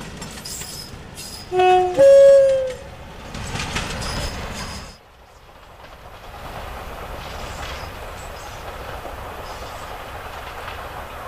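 Class 47 diesel locomotive with a train of coaches passing close at speed, wheels clattering over the rail joints. About two seconds in it sounds its two-tone horn: a short low note, then a longer higher one. Halfway through the sound drops abruptly to the quieter, steady rumble of the locomotive approaching from far off.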